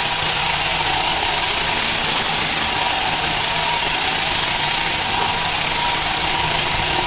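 Roomba robot vacuum running steadily, its motor and brushes giving an even whir with a thin whine on top.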